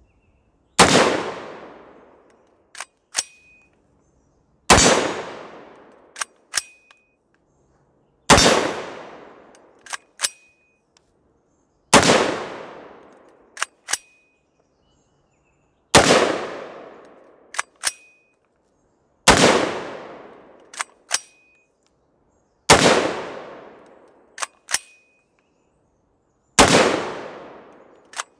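Franklin Armory CA7 gasless AR-15 pistol, 7.5-inch barrel, firing eight single 5.56/.223 shots about every four seconds. Each shot is followed by two sharp clicks as the charging handle is pulled back and let go. With no gas system, the bolt must be racked by hand after every round.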